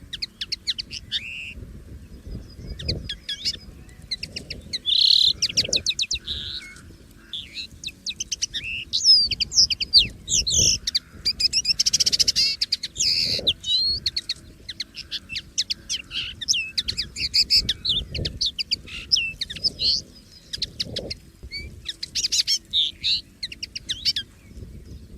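Common linnet singing: a long, near-continuous run of fast twittering chirps and quick trills with brief pauses, over a faint low rumble.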